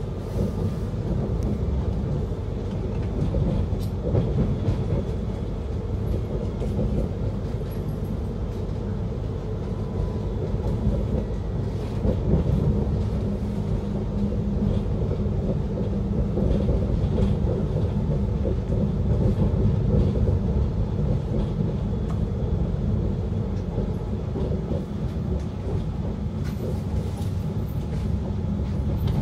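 Inside an Italo high-speed train rolling over the tracks, heard from the passenger cabin: a steady low rumble with occasional faint clicks of the wheels over rail joints and points.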